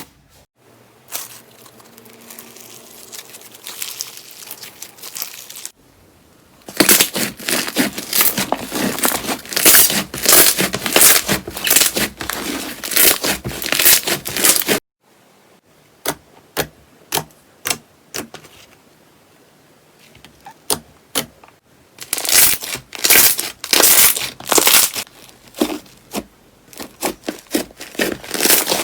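Slime being squeezed, pressed and poked by hand, giving runs of sharp crackles and pops. The clips change abruptly several times: a quieter, softer stretch first, then a dense crackling run, then scattered single pops, then dense popping again.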